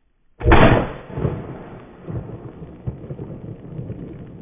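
A 12-gauge shotgun fires a dragon's breath round about half a second in: one loud blast, then a long rolling rumble with scattered cracks that slowly fades.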